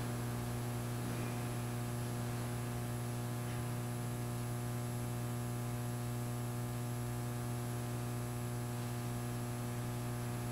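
Steady low electrical mains hum with several overtones over a light hiss, unchanging throughout.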